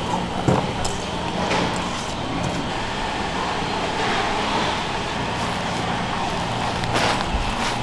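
Hands mixing crumbly dumpling filling in a plastic basin, a soft rustling over a steady background hum, with a few short knocks.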